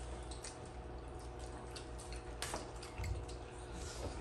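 Eating sounds at a table: scattered soft clicks and mouth noises of people chewing and handling rice and food with their fingers, the sharpest click about two and a half seconds in, over a faint steady low hum.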